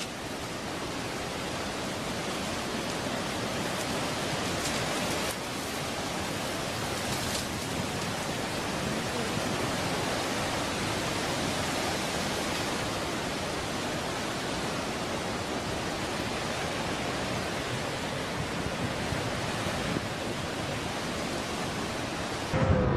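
A steady rushing hiss of noise with no pitch or rhythm, like heavy rain or falling water.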